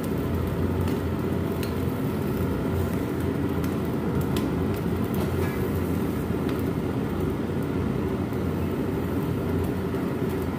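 Portable gas stove burner running on a high flame with a steady low roar while a cow's foot is singed in it, with a few faint clicks here and there.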